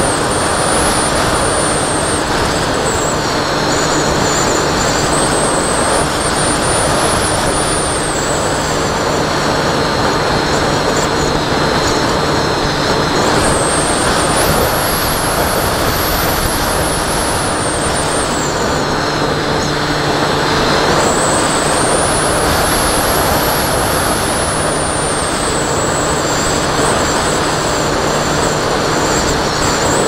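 Bixler 2 RC plane's electric pusher motor and propeller whining, heard through the plane's onboard camera over a constant loud rush of wind on the microphone. The whine rises and falls in pitch about four times as the throttle is pushed up and eased off.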